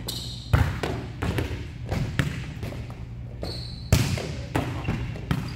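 Volleyballs being hit and bouncing on a gym court: a series of sharp smacks and thuds, the loudest about half a second in and again near four seconds, over a steady low hum.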